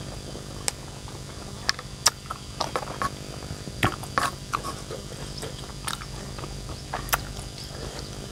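A person chewing a mouthful of shredded young papaya in chili sambal, with scattered short wet mouth clicks and smacks, over a faint steady low hum.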